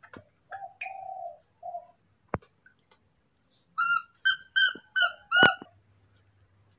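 A series of short, pitched animal calls. A few lower calls come in the first two seconds, then five rising-and-falling calls follow in quick succession from about four seconds in, the last one loudest. A single sharp click sounds a little after two seconds in.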